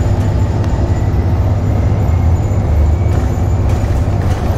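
Bus engine running and tyre noise while driving, heard from inside the bus: a steady low rumble.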